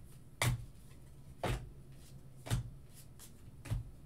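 Football trading cards being flipped one at a time through a hand-held stack: a short soft swish as each card slides off, about once a second, four times.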